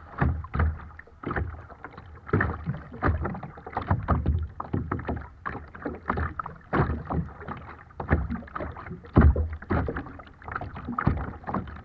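Choppy water splashing and slapping against a kayak right at the waterline, in quick irregular splashes with heavier low knocks now and then, the loudest about nine seconds in.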